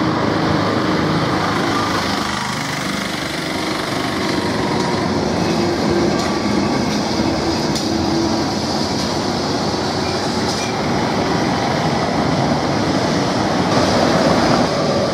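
Heritage electric tram running along street rails, steel wheels on the track with a steady running noise and faint squeal, loudest as it passes close.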